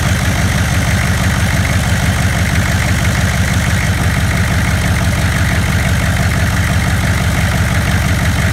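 GM 6.5-litre V8 diesel idling steadily, fitted with a newly installed BorgWarner S300 turbocharger, started up so the new install can be checked for leaks.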